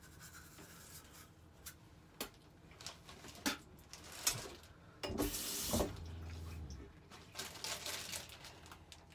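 Toothbrushing and rinsing at a small sink: scattered scrubbing and clicking sounds, then a brief rush of water into the basin about five seconds in, the loudest sound.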